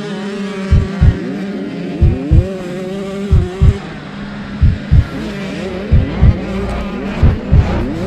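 KTM SX85 two-stroke engine revving up and falling back again and again as the bike is ridden through its gears, with other dirt bikes running close by. Heavy low thumps come through every second or so.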